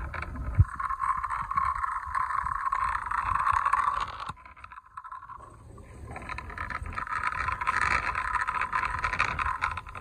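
The tyres of a die-cast model Hyundai Creta rolling along rough concrete as it is pushed by hand, a steady gritty rolling noise. It stops for a moment about four seconds in, then starts again and runs on.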